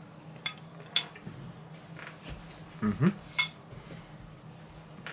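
A metal fork clinks against a ceramic plate twice, then, after a short low vocal sound, the plate is set down with a sharp clink.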